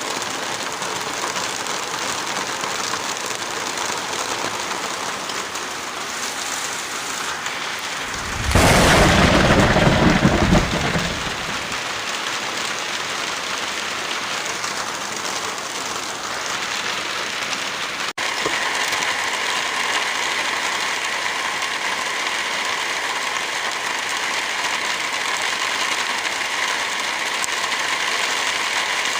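Steady rain falling, with a clap of thunder about eight seconds in that lasts a couple of seconds and is the loudest sound here. A little past halfway the sound cuts out for an instant, and the rain comes back with a slightly different tone.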